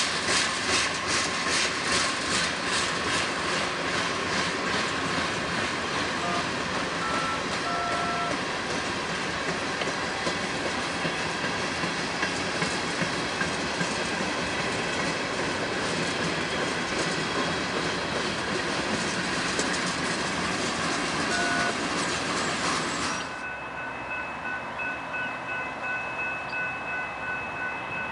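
Freight cars (covered hoppers and tank cars) rolling past, their wheels clicking over the rail joints in a steady clickety-clack. About 23 seconds in the train noise cuts off, and a bell rings steadily and repeatedly.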